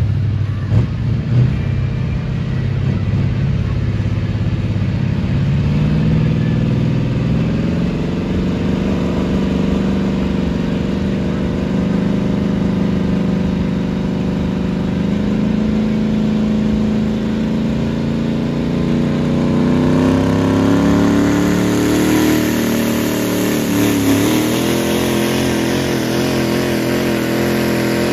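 Diesel pickup truck in a truck pull, its engine running hard under load as it drags a weight-transfer sled down the track. The engine note climbs steadily for about twenty seconds, dips briefly, then holds high.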